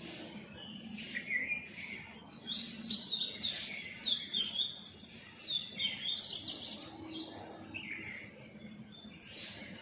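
Birds chirping in a morning chorus: a steady run of quick, high chirps and short trills, several overlapping at once.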